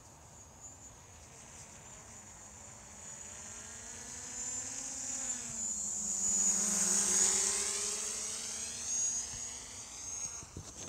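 A passing motor's whining hum with several pitches. It slowly swells to its loudest about seven seconds in, its pitch dropping as it passes, then fades.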